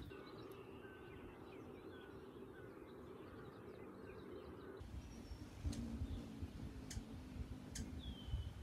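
Faint bird chirps in open country. About halfway through the sound changes to wind rumbling on the microphone, with a few more bird calls and clicks.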